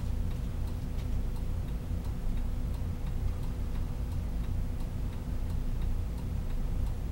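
A bus turn-signal relay ticking steadily and evenly while the stationary 1995 Hino Rainbow bus idles under it with a low steady hum.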